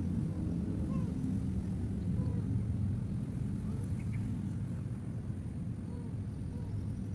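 Steady low vehicle rumble, with a few faint short mews from a tabby-and-white cat being stroked.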